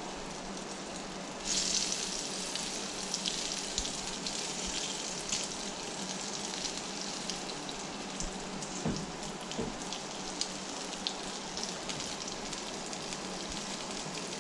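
Breaded crappie chunks deep-frying in hot oil: a steady sizzle with scattered crackling pops, which turns suddenly louder about a second and a half in.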